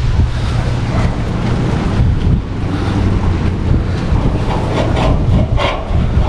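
Strong wind buffeting the microphone: a loud, continuous low rumble with gusty rushing noise over it.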